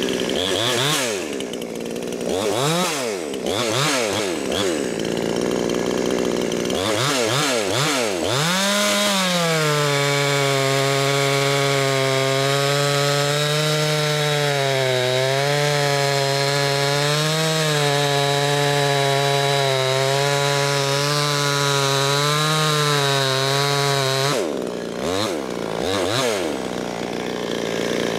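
Ported, muffler-opened Chinese-clone 62 cc two-stroke chainsaw, tuned to about 13,000 RPM, revved in several short blips, then cutting through a log for about fifteen seconds with the engine holding a steady, lower pitch under load. Near the end it comes out of the cut, revs a few more times and settles back.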